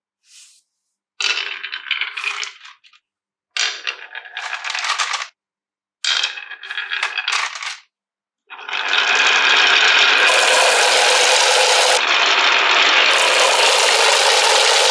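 Marbles rattling and clattering down a wooden marble run in three separate bursts, each about two seconds long. About eight and a half seconds in, a continuous rattling rush sets in and keeps going.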